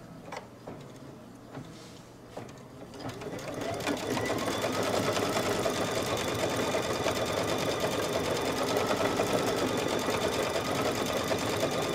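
A Brother computerised embroidery machine starts stitching out a quilting design about three seconds in, speeding up briefly and then running steadily with rapid needle strokes. A few light clicks come before it starts.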